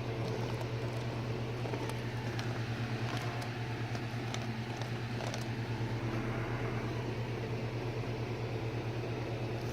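Steady low hum with faint scattered clicks.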